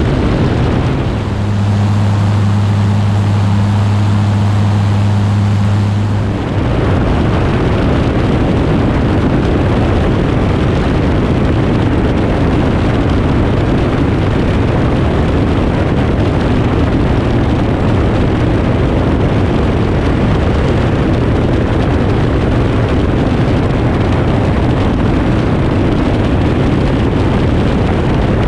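Aeroprakt A22 light aircraft in cruise flight, heard from a camera mounted outside the airframe: a loud, steady rush of airflow on the microphone mixed with engine and propeller noise. A steady low drone stands out from about a second in until about six seconds in.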